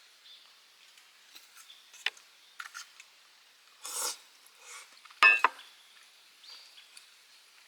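Scattered handling noises, small clicks and a rasping rub, with one sharp metallic clink that rings briefly about five seconds in.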